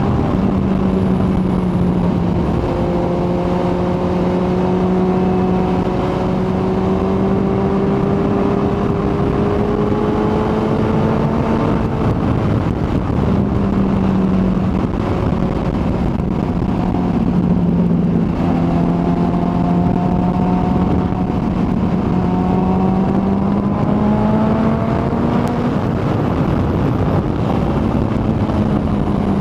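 Kawasaki ZX-14R inline-four engine running at a steady cruise under a continuous rush of wind noise. The engine note drifts gently up and down, dipping a few times and rising again with the throttle.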